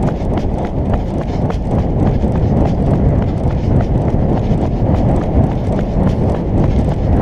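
Running footsteps on asphalt at a steady cadence of about three strides a second, heard from a body-worn camera, over a heavy rumble of wind on the microphone.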